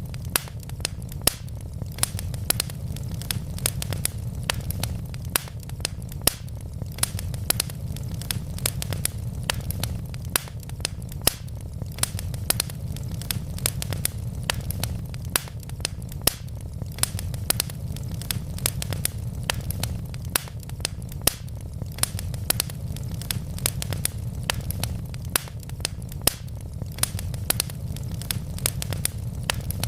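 Wood fire crackling in a fireplace: a steady low rumble of flame with frequent sharp pops and snaps, several a second.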